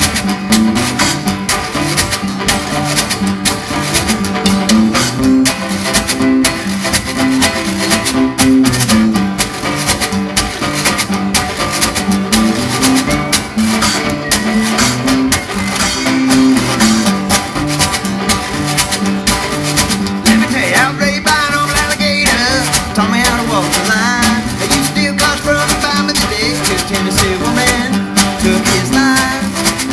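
Live jug-band style instrumental: banjo and two acoustic guitars playing a steady bouncing rhythm over a washboard's scraping beat. About twenty seconds in, a wavering high lead line joins.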